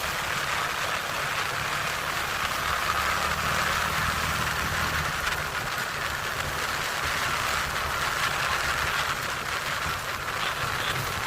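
ATV engine running steadily at an even speed, with a constant rush of noise over it.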